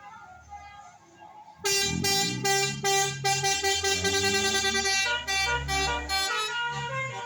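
A multi-tone telolet air horn cuts in abruptly about a second and a half in and plays a fast run of pulsing musical notes, switching to a different set of notes about five seconds in, over the low rumble of the vehicle's engine. Fainter horn tones come before it.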